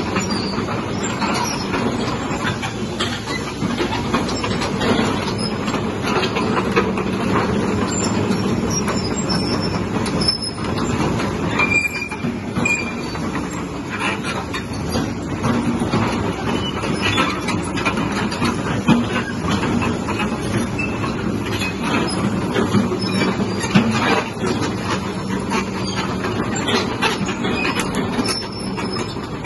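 Kobelco SK200-10 crawler excavator travelling and turning on its steel tracks: a continuous stream of clanks and clicks from the track chains over the steady hum of its diesel engine.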